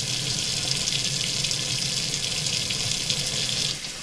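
Water running from a kitchen faucet and splashing onto a glass 3D-printer build plate held under the stream. The splashing drops off suddenly just before the end.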